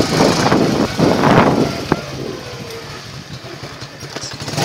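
Small motor scooter running as it is ridden slowly, with a loud rushing noise for the first second and a half, then quieter with a steady low engine pulse.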